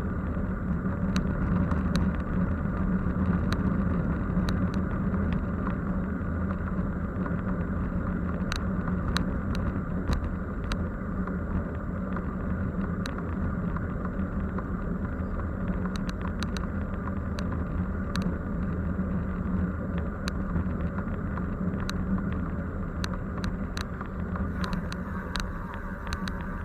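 A motor vehicle running along steadily, its engine and road noise making a constant low hum, with many small scattered clicks through it.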